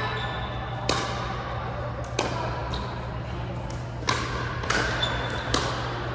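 Pickleball paddles hitting a plastic ball during a doubles rally: about five sharp pops, unevenly spaced, each echoing in a large hall.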